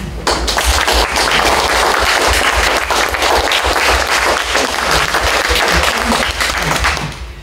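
Audience applauding: many people clapping together, starting just after the start and dying away near the end.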